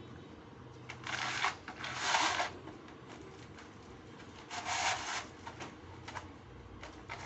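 German Shepherd puppy digging at a doormat: three short bouts of scratching, about one, two and four and a half seconds in, with a few light clicks between them.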